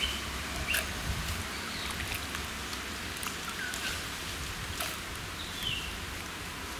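Hands swishing cubes of elephant yam in water in a clay pot: light splashing and dripping, with scattered soft knocks as the pieces are lifted and dropped back.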